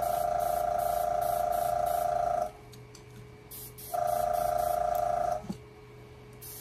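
Small airbrush compressor running with a steady, pulsing hum. It stops abruptly twice: a few seconds in, then again after starting back up for about a second and a half.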